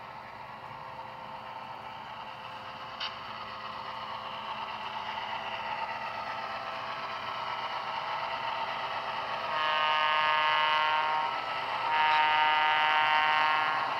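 Soundtraxx Tsunami sound decoders in HO scale EMD F7 diesel locomotives playing the diesel engine sound, growing steadily louder as the locomotives approach. Two long horn blasts sound, the first about nine and a half seconds in and the second about twelve seconds in.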